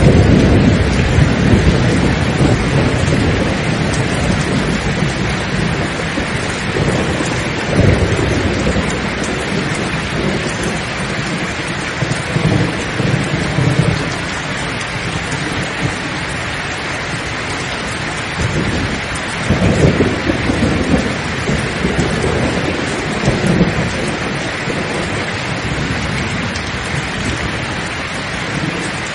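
Steady heavy rain with thunder rumbling in low rolls that swell at the start and again about eight, thirteen and twenty seconds in.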